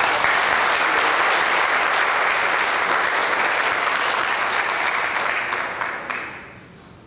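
Congregation applauding, a dense steady clapping that dies away about six seconds in.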